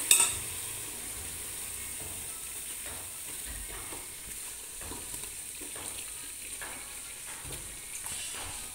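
Low, steady sizzle of wheat flour roasting in ghee in a steel pot, with faint scattered taps and scrapes as lumps of khoya are pushed in and stirred. A sharp knock right at the start is the loudest sound.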